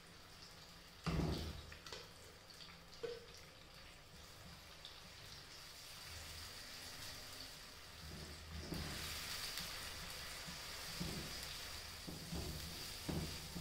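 Ground onion-tomato masala paste frying in oil in a pan: a soft sizzle that grows louder from about nine seconds in. A wooden spatula knocks and scrapes against the pan, the loudest knock about a second in.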